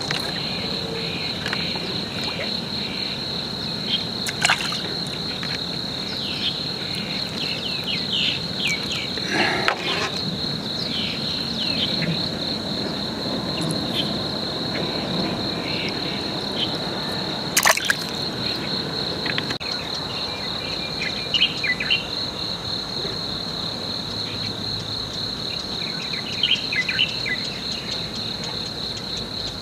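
Insects trilling in one steady, high-pitched, finely pulsing drone, with scattered short chirps over it and a sharp click about two-thirds of the way through.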